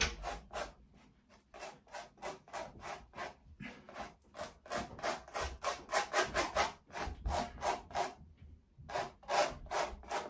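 Metal palette knife scraping thick acrylic paint across a textured canvas board, a run of short rasping strokes about three or four a second with a brief pause about eight seconds in. The rasp comes from the knife riding over the ridged texture of the underpainting.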